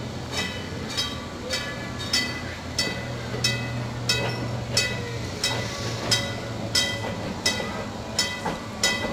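Electric trolley car running on the rails, its wheels clicking sharply over rail joints about every two-thirds of a second, each click ringing metallically, over a steady low motor hum.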